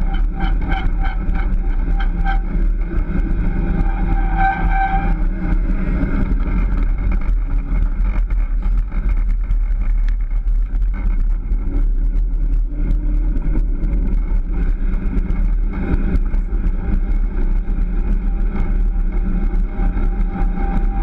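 Steady rolling noise of a wheeled dryland mushing rig moving along pavement behind a dog team, with a low hum under it. A whine over the noise fades out about five seconds in and returns later.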